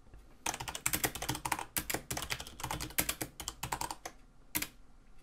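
Typing on a computer keyboard: a quick run of keystrokes that starts about half a second in and stops around four seconds, with one more keystroke shortly after.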